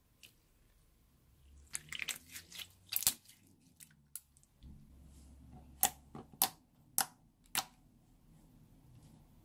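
Clear slime being worked by hand, giving off sticky clicks and pops: a cluster about two seconds in, then five sharp single pops near the end.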